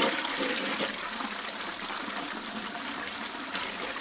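A toilet flushing: an even rush of water, a little louder at the start, then running on steadily.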